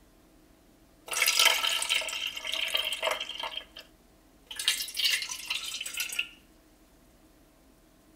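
Tea poured from a stainless steel ladle back into a pot of sliced apple and ginger, twice: a pour of about two and a half seconds, then after a short gap a second pour of under two seconds.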